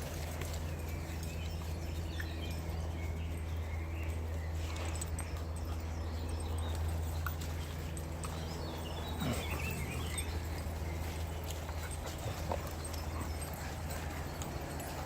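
Dogs playing and scuffling with sticks: scattered knocks and patter, with a short falling whine about nine seconds in, over a steady low hum.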